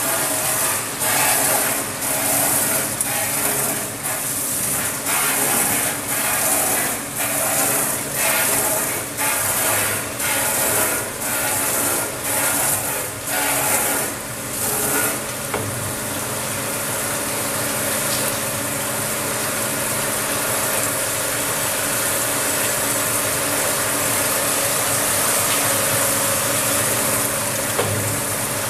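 Automatic bottle rinsing machine running with water spraying. For the first half a steady noise pulses about once every 0.7 s; then it settles into an even hiss over a steady mechanical hum.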